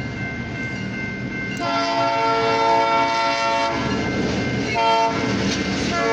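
Diesel freight locomotive's air horn sounding for a grade crossing. A long blast begins about one and a half seconds in, a short blast comes around five seconds, and another long blast starts near the end, all over the low rumble of the approaching train.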